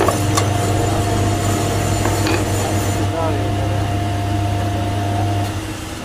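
A steady low machine hum that stops near the end, with a few light metal clinks as a motorcycle crankshaft and connecting rod are handled on a V-block stand.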